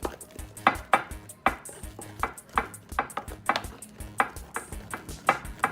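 Homemade dish-soap slime being kneaded and slapped against a surface by hand, giving irregular wet smacks about once or twice a second; the slime has not come out right. Background music with a steady beat runs underneath.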